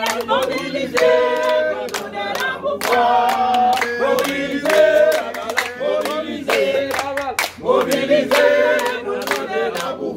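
A group of men and a woman singing a chant together, with steady hand clapping in time.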